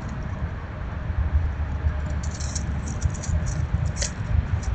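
Small dry clicks and crackles, coming in a quick run from about halfway, as squirrels forage among scattered seed and hulls close to the microphone, over a constant low rumble.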